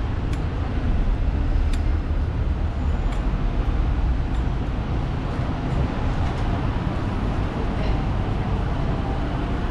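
Busy city street traffic: cars, taxis and buses running past in a steady low rumble, with a few faint clicks.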